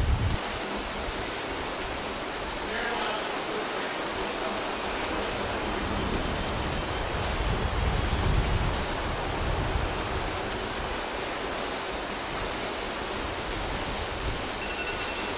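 Heavy thunderstorm downpour, rain falling in a steady hiss.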